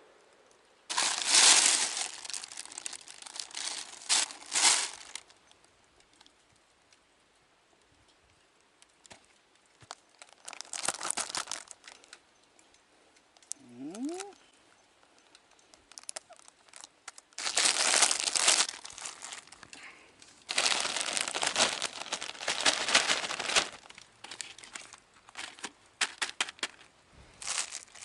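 Packaging being crumpled and torn open in several separate bursts of crinkling and rustling, with quiet gaps between. A short rising squeak about halfway through.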